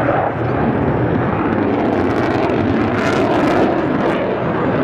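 Fighter jet flying overhead: loud, steady jet engine noise.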